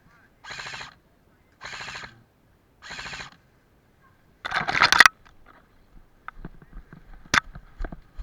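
Airsoft rifle firing full-auto: three short bursts of rapid shots about a second apart, then a louder, longer burst about four and a half seconds in, followed by a few scattered sharp clicks and snaps.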